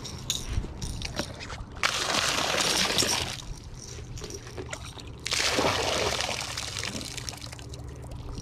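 Water pouring and trickling out of a rusty metal bucket as it is held up over the lake, in two loud gushes, about two seconds in and again about five seconds in.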